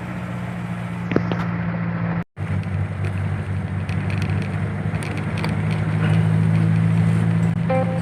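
Truck engine running steadily while driving, a low even hum that cuts out for a moment about two seconds in and grows louder in the second half.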